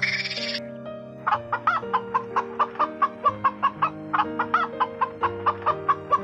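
Domestic hens clucking in a fast, even series of short clucks, about four or five a second, starting a little over a second in, over background music with sustained notes. A brief high chattering noise cuts off about half a second in, before the clucking.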